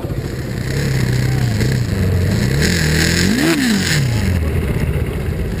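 KTM Duke 390 single-cylinder motorcycle engine at race pace, its note rising and falling, then climbing steeply to a sharp peak about three and a half seconds in and dropping again as the throttle is backed off.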